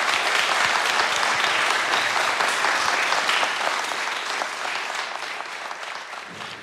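Applause from a seated group of people clapping, thinning out and fading away over the last two seconds.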